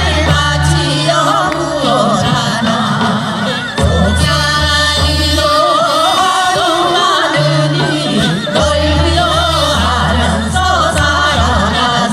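Korean traditional folk singing with strong, wide vibrato over instrumental accompaniment, with a deep sustained bass note that drops in and out every few seconds.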